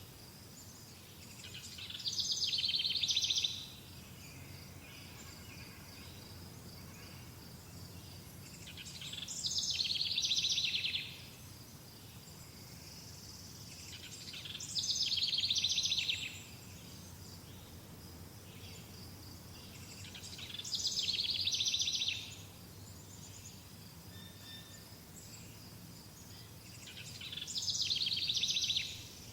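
A songbird singing the same rapid trilled phrase five times, about every six seconds. Each phrase swells for about two seconds and then stops sharply. A faint steady high-pitched insect whine runs underneath.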